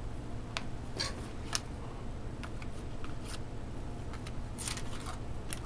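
Hockey trading cards being handled and flipped through: scattered light clicks and brief rustles of card stock.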